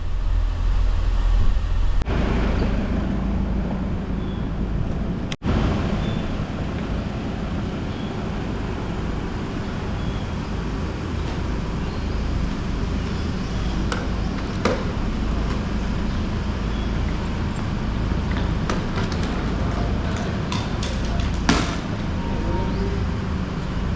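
Steady engine and road noise of a moving road vehicle, with a brief break about five seconds in and a few light clicks and knocks in the second half.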